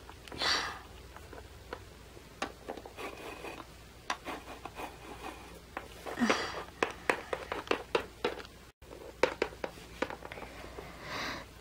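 Small plastic toy figurines clicking and tapping against a wooden floor as they are handled and moved, with light scraping and handling noise. A couple of short soft vocal sounds break in, one a little after the start and one about six seconds in.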